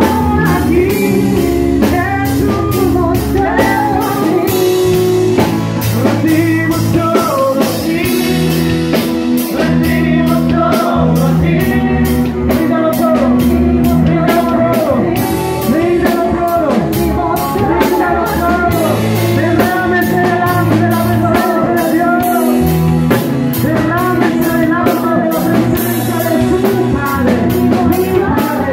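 Live worship band playing with a steady drum beat, electric guitar and keyboard under sung vocals.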